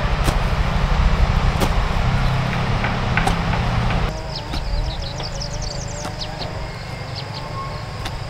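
A hoe blade striking dry soil a few times, about once every second and a half, over a low wind rumble on the microphone. About four seconds in the sound changes abruptly to a quieter field background with birds chirping.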